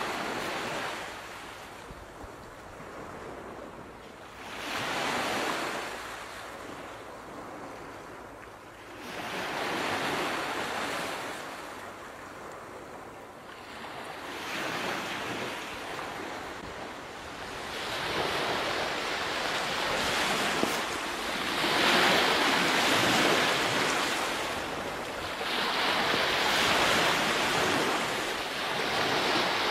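Sea waves breaking and washing in, a surge of surf about every four to five seconds, louder in the second half.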